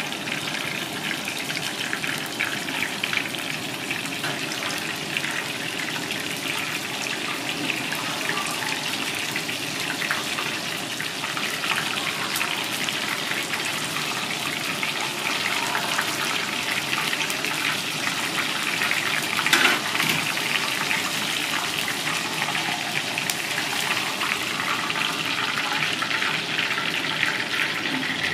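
Battered fish pieces deep-frying in hot oil: a steady sizzle with dense crackling, and one louder pop about two-thirds of the way through.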